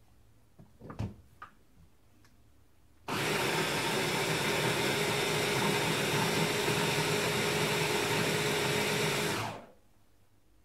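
Stick blender running on its mini chopper bowl, blending coriander, basil and yogurt into green curry paste: a couple of clicks as the motor unit is fitted, then the motor starts suddenly about three seconds in, runs steadily at one speed for about six seconds and winds down near the end.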